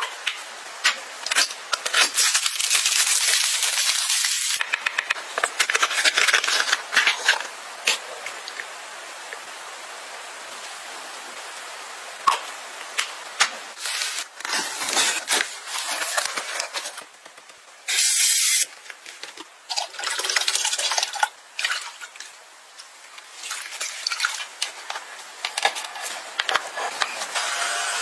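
A run of short household cleaning sounds: several hissing spray bursts, with sharp clicks, taps and rubbing between them.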